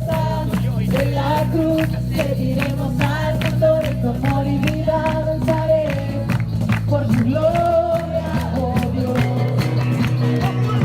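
Music with a sung melody over a steady beat and bass.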